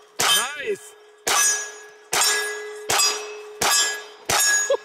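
A steel target being hit by a quick string of shots from hand-reloaded 9mm rounds. There are six sharp metallic clangs, less than a second apart, and each one rings on until the next. The rounds are firing and striking the steel.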